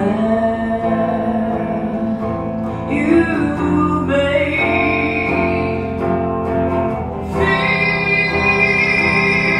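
A woman singing a slow Christian song, holding long notes, with her own Epiphone Les Paul electric guitar accompanying her.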